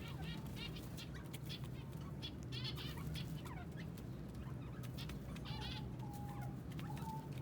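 Kept birds chirping and clucking in many short, quick calls, with a steady low hum underneath.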